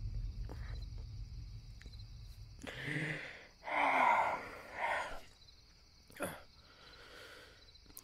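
A low rumbling drone fades out during the first couple of seconds. Then come a person's heavy breaths or gasps, three about a second apart, the middle one loudest, and a short, sharp intake of breath near the end.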